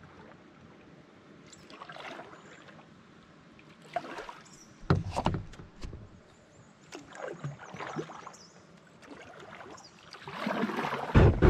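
Canoe paddle strokes in calm water: the blade dipping and pulling with a swish about every two to three seconds, with a few sharp knocks among the strokes.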